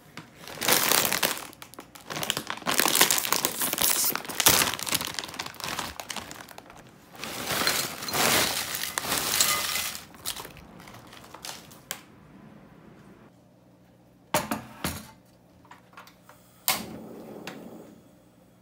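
Tortilla chips crunching and rattling as they are poured from a crinkling plastic bag into a glass bowl, in loud spells over the first ten seconds. After that it is much quieter, with a few sharp clicks, and near the end a click is followed by a short hiss as a portable gas stove's burner is lit.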